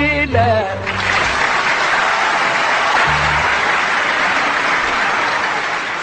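An Arabic song with orchestra ends on a held sung note about a second in, then an audience applauds steadily.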